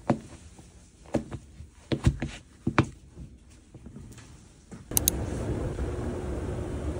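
A few scattered knocks and scuffs of canvas sneakers being pulled on and stepped in on a laminate floor. About five seconds in, a steady rumble with a faint hum takes over: a moving escalator.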